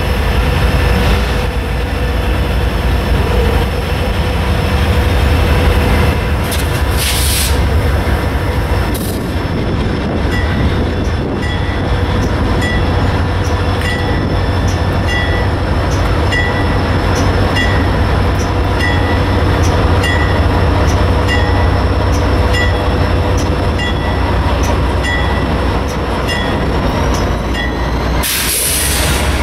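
CSX diesel-electric freight locomotives rumbling low and steady as the train rolls slowly forward. From about ten seconds in, a locomotive bell dings about once a second. Near the end there is a short burst of hiss as the lead unit comes alongside.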